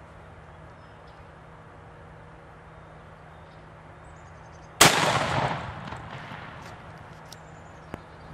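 A single shot from a 12-gauge hammer double-barrel shotgun loaded with black powder shells, about five seconds in: a sharp blast with a rolling echo that dies away over about a second.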